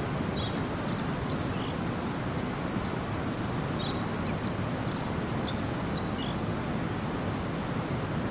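Small stream babbling steadily, with birds giving short high chirps in two clusters, about a second in and again around four to five seconds in.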